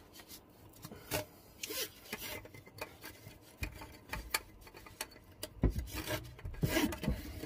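Rubbing and scraping handling noises with scattered clicks and knocks, as hoses and fittings are handled against the underside of a caravan. A low rumble comes in about halfway through, and there is a louder run of knocks near the end.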